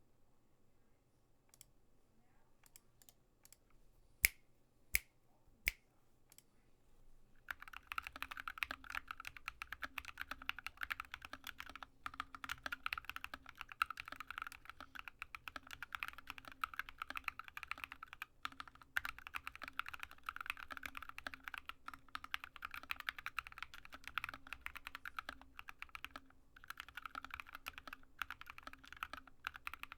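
Typing on a Drop ALT low-profile mechanical keyboard with stock, unlubricated Alpaca linear switches and MT3 keycaps. A few single keystrokes come first, then from about a quarter of the way in there is steady fast typing with brief pauses.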